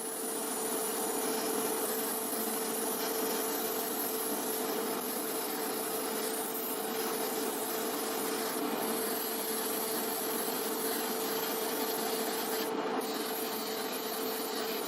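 Small electric tool running steadily with a constant hum over a hiss, switching on and off abruptly after about fifteen seconds.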